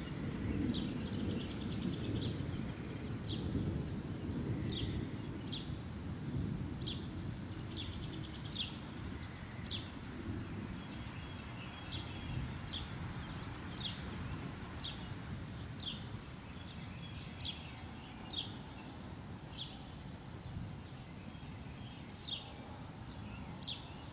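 Distant thunder rumbling low and slowly fading, with a bird repeating short high chirps about once a second over it.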